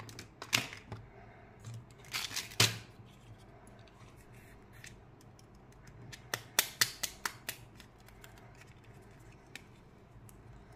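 Small clear plastic eyeball candy capsule handled and snapped open: sharp plastic clicks and crackles. A few come in the first three seconds, and a quick run of about six clicks follows around six to seven seconds in.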